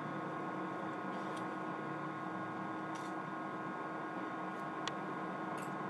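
Steady electrical hum, with a few faint small clicks as a mini screwdriver works a screw out inside an opened iPhone 4.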